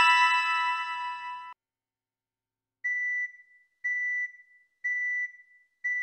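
BlackBerry 8700g ringtones: a bell-like chime ringtone rings out and cuts off about a second and a half in, then, after a short gap, a plain high beep ringtone sounds four times, about once a second.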